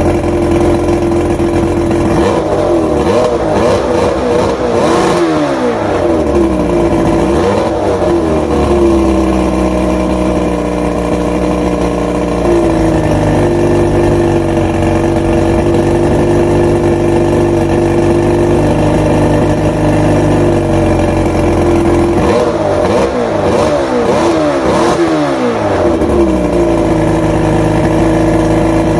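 Mercury two-stroke outboard engine with ADI ignition running on a test stand: a steady idle broken by two spells of revving up and down, a couple of seconds in and again about three-quarters of the way through. The owner says its fuel pump is not supplying enough fuel to keep it running.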